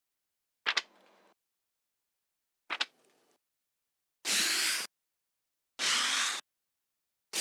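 Paper book pages being turned, one separate take after another: two short, crisp flicks, then three longer swishing page turns about a second and a half apart, the last cut off at the end.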